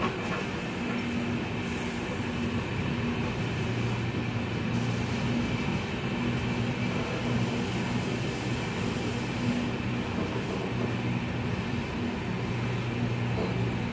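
Indian Railways passenger train rolling slowly, heard at an open coach doorway: steady running noise with a low, steady hum and no sharp wheel clatter.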